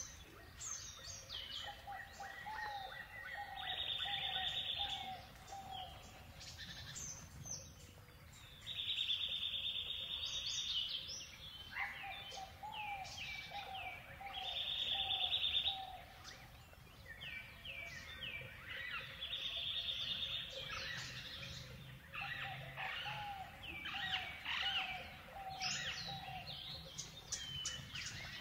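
Several birds chirping and calling: quick high chirps throughout, a buzzy trill about a second and a half long that comes back four times, and runs of short, lower-pitched notes.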